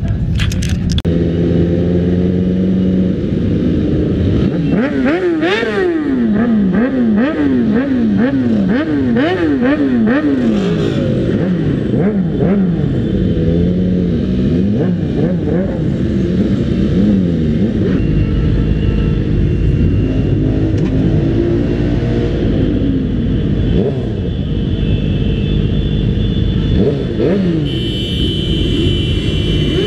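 A group of motorcycles running together, their throttles blipped over and over so the engine pitch climbs and drops about once a second through the first half.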